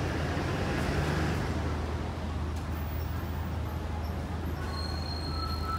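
Steady low engine rumble and street traffic noise. About five seconds in, a faint thin high whine joins it.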